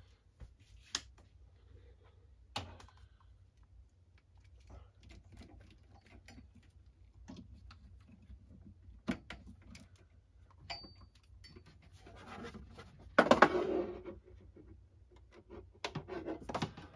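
Hands handling cables and a small streamer box on a hi-fi rack shelf: scattered clicks and knocks with short rustles, and a louder scraping rustle about 13 seconds in.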